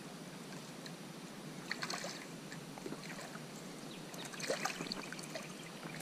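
Light splashing and sloshing of shallow water from a hooked whiting thrashing at the surface as it is landed, with small splashes about two seconds in and a busier patch around four and a half seconds in.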